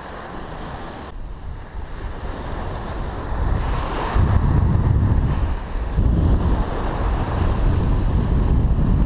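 Wind buffeting the microphone over small surf breaking on a sandy beach; the wind rumble gets louder about four seconds in.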